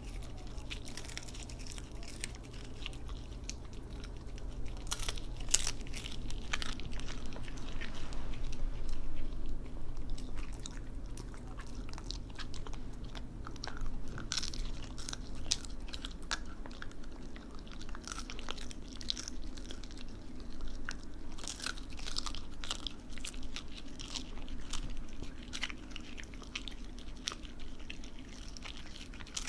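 Shiba Inu chewing a crunchy whole capelin fish treat: irregular sharp crunches as the fish breaks between its teeth, with short pauses in between.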